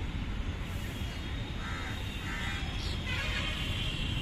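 Open-air ambience of a football ground during play: a steady low rumble, with two short calls about two seconds in, the second about half a second after the first.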